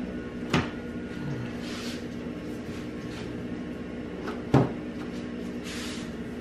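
Plastic retaining clips on a Mercedes W212 engine-bay intake cover snapping loose twice, about four seconds apart, as the part is pried off, with some plastic rustling in between.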